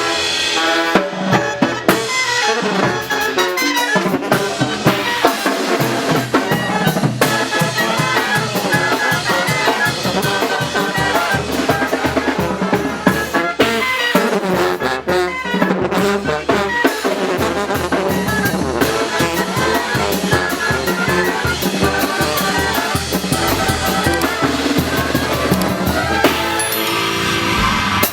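Oaxacan brass band playing a carnival muerteada rhythm: trumpets and other brass over steady, driving drums.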